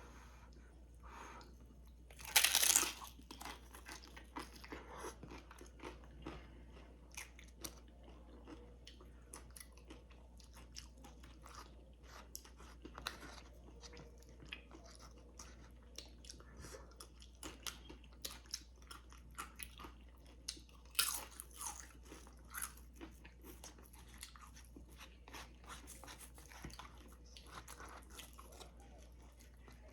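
Close-up crunching of tortilla chips being bitten and chewed. There are two loud crunching bites, one a couple of seconds in and one about two-thirds through, with many small chewing crunches in between.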